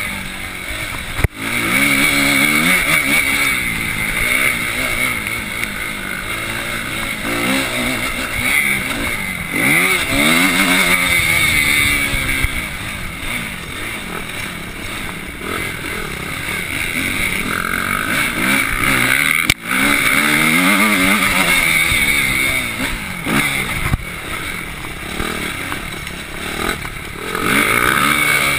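Suzuki RM-Z250's single-cylinder four-stroke engine heard from the handlebars, revving up and down again and again as the bike is ridden hard around a motocross track. The sound drops out sharply for an instant twice, about a second in and again near the twentieth second.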